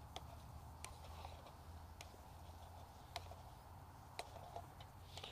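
Utensil stirring rice in a metal camp cookpot, giving a few light, irregular clicks against the pot about once a second over a faint low hum.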